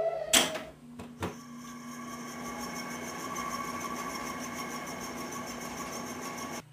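Air conditioner switching on with a loud click and a second click, then running with a steady mechanical hum that cuts off suddenly near the end: the repaired unit working again.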